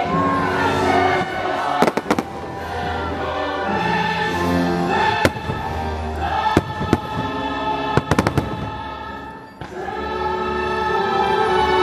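Fireworks bursting in sharp bangs: a pair about two seconds in, single ones around five and seven seconds, and a quick cluster near eight seconds. Under them the show's orchestral music plays continuously, with a choir singing.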